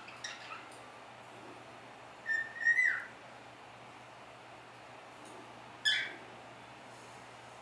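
Cockatiel whistling and chirping: a few short chirps at the start, a held whistle a little over two seconds in that ends in a falling slur, then one short call near the end.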